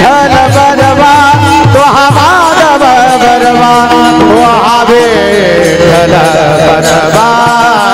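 Varkari kirtan music: a solo male voice sings an ornamented devotional melody into a microphone. Beneath it run pakhawaj drum strokes, with gliding bass notes through the first two seconds, and the steady jingle of small hand-held tal cymbals.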